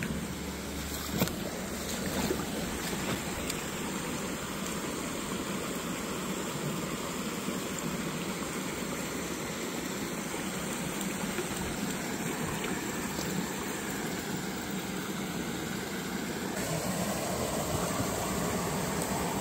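Small woodland stream rushing over a low cascade and riffle, a steady wash of water that grows a little fuller and louder near the end. A single sharp click about a second in.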